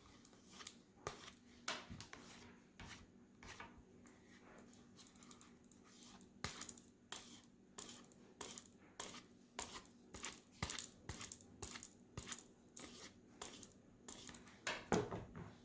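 Faint, repeated short strokes of a Kabar knife blade, sparse at first and then regular at about one to two a second, with a louder stroke near the end.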